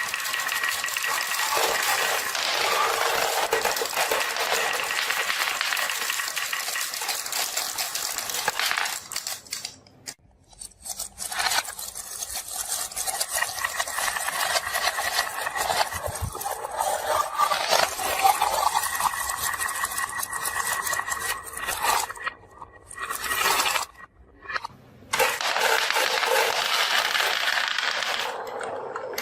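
Marbles rolling and clattering down a marble run: a dense stream of small clicks and clinks that breaks off briefly twice, once about a third of the way in and again near the end.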